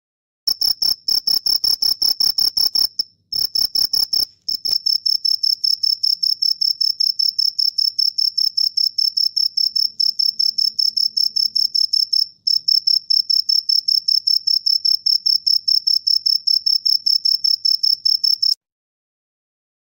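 Cricket chirping: a fast, even string of high-pitched chirps with a couple of brief pauses, cutting off suddenly near the end.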